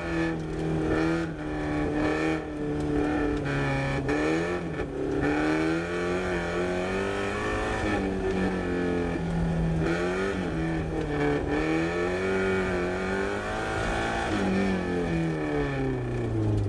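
Car engine heard from inside the cabin, its revs rising and falling repeatedly as the car accelerates and slows on an autocross course, the pitch dropping away near the end as it slows.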